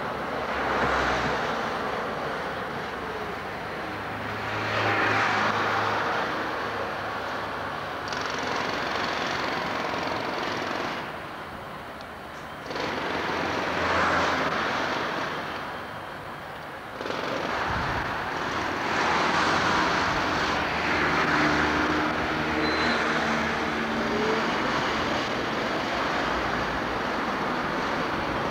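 Electric trams passing close by amid street traffic. The rumble of wheels on track swells and fades several times as trams go past, with a few abrupt changes where the shot cuts. A brief rising whine comes about three-quarters of the way through.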